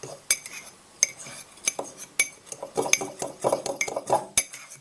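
A spoon stirring dry flour, sugar and cocoa powder in a ceramic mug: irregular clinks and scrapes of the spoon against the mug's sides and bottom.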